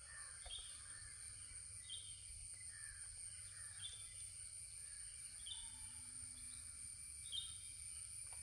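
Faint rural morning ambience: a steady high insect drone, with a bird repeating a short high call every couple of seconds and softer falling bird notes between.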